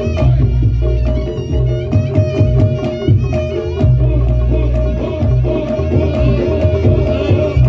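Reog Ponorogo ensemble music: hand drums and gongs beating a fast, dense rhythm under a held, reedy pipe melody.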